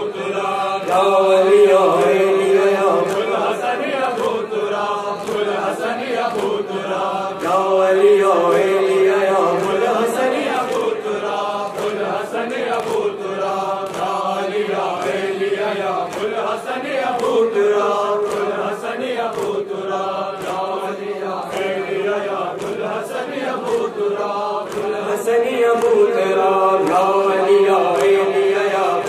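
A noha lament chanted by a male reciter on a microphone, with a group of men singing the refrain along with him in long held notes. Rhythmic slaps of matam chest-beating run under the chant.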